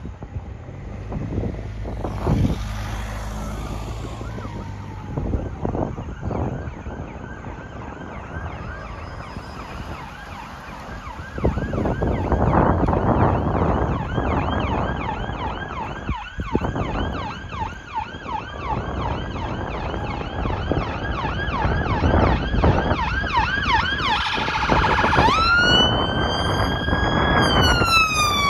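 Ambulance response car's electronic siren getting louder as it approaches, sounding a fast repeating yelp that switches to a slower rising-and-falling wail near the end. A passing car's engine and tyre noise is heard in the first few seconds.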